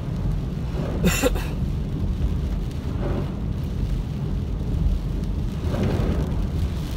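Car driving on a rain-soaked road, heard from inside the cabin: a steady low rumble of engine and tyres on wet pavement, with the windshield wipers sweeping and a brief sharper sound about a second in.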